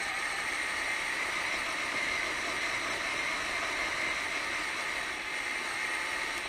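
Radio-controlled truck driving along pavement, heard through its own onboard camera: a steady whine from the drivetrain over a constant rush of tyre and road noise.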